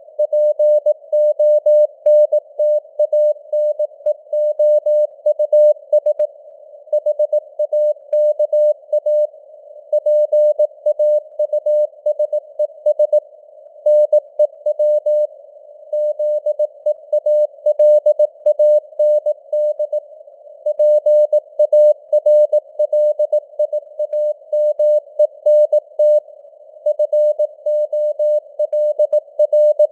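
Morse code (CW) sent at 18 words per minute as a single mid-pitched tone keyed on and off in dots and dashes. It sits in a narrow hiss of simulated radio noise, with the signal strength fading up and down (QSB).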